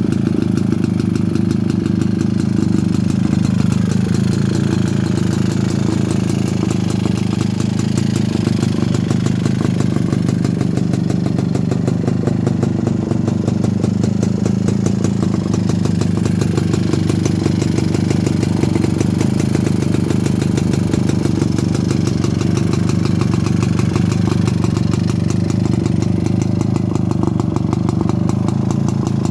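Freshly restored 1947 Jawa 250 Pérák's single-cylinder two-stroke engine running at idle in a steady, rapid beat. Its speed rises and falls slightly a couple of times.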